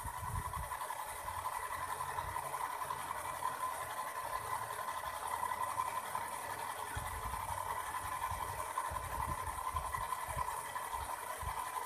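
RC toy Chinook tandem-rotor helicopter's motors and rotors running steadily at raised throttle, a constant whir. Low gusty rumbles come and go, strongest about seven to eleven seconds in.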